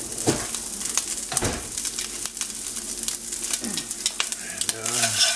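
Chopped smoked bacon sizzling and crackling in a stainless steel skillet as it crisps in hot fat: a steady hiss with frequent sharp pops.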